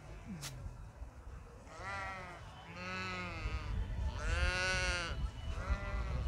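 Corriedale sheep bleating four times, with quavering cries, the third the longest and loudest. One sharp click about half a second in.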